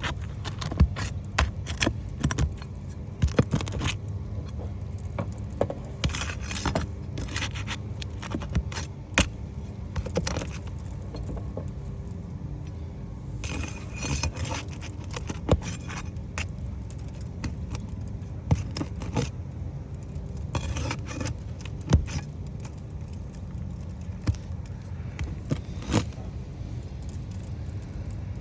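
Irregular scraping, clicking and metallic clinking of hand tools working under asphalt roof shingles as the shingles are pried up and unsealed, with a steady low hum underneath.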